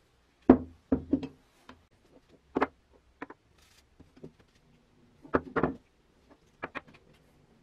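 Cast-iron meat grinder parts being handled and set down on a wooden tabletop: a string of sharp knocks and clinks, loudest about half a second in, with further clusters about five and a half and seven seconds in.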